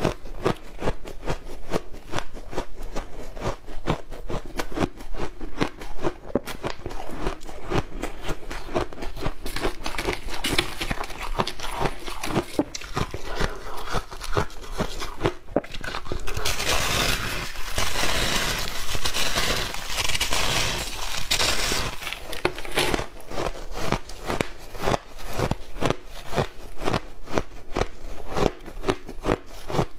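Refrozen shaved ice being bitten and chewed: a dense run of sharp, crackly crunches, heaviest and most continuous for several seconds just past the middle.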